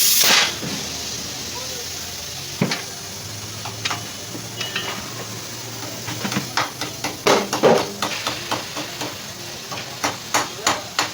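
A loud hiss cuts off just after the start, then scattered sharp clicks and clanks of metal being handled, thickest in the second half.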